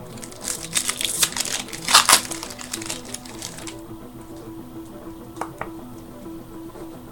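Foil wrapper of a 1999 Metal Universe trading-card pack being torn open and crinkled for about three seconds, then a couple of light clicks as the cards are handled, over background music.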